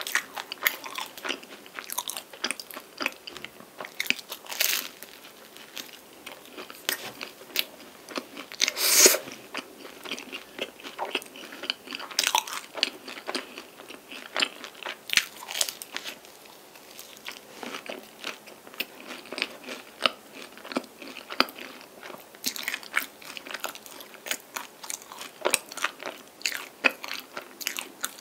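Close-miked eating of a cream-filled tiramisu pie: bites and chewing with many short mouth clicks and crackles, the loudest bite about nine seconds in.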